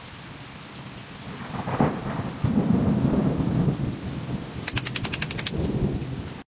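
Steady rain with a rolling rumble of thunder that swells about two seconds in and dies away over a few seconds. A quick run of faint clicks comes near the end.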